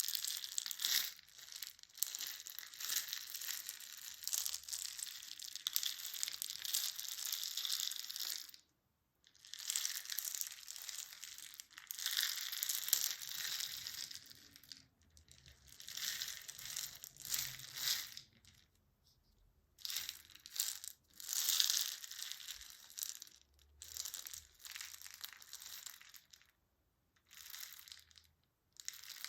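Crinkling and crushing of some material, in irregular bursts broken by short pauses.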